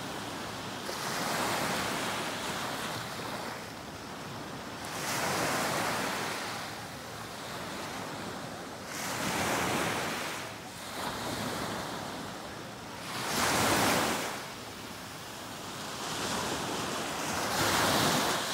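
Small waves breaking on a sandy beach and washing up the shore, the surf swelling about every four seconds.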